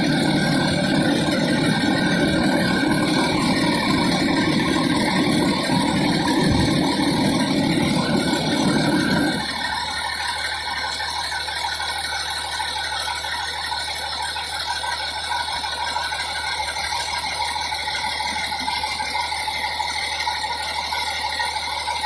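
Fire engine's engine running up close, a steady mechanical hum with several held tones. The heavy low rumble cuts off sharply about nine and a half seconds in, leaving a quieter, steady running hum.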